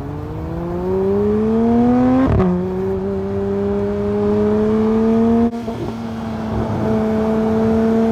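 Porsche 992 GT3's naturally aspirated flat-six accelerating through the gears. The engine note rises, drops abruptly with an upshift a little over two seconds in, then climbs again more slowly. There is another sharp break at about five and a half seconds before the note holds fairly steady.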